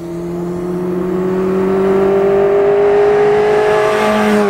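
Kawasaki Ninja motorcycle engine in a mid-engine 1991 Rover Mini, running at high revs as the car drives by close. The pitch climbs slowly and the sound swells, then dips a little near the end as the car passes.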